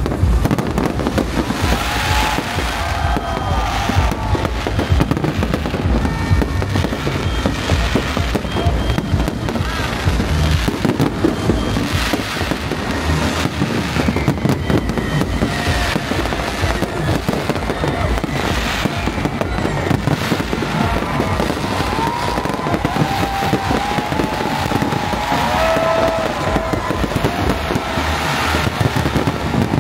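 Fireworks display going off in a dense, continuous barrage of overlapping bangs and crackles, with no pause.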